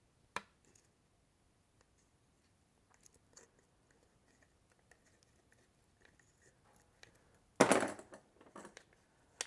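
Small clicks and fiddling of needle-nose pliers working loose the knot in a chainsaw's recoil starter rope, with one sharp click about half a second in. Near the end, a loud brief rasp as the freed rope end is drawn out through the plastic starter handle.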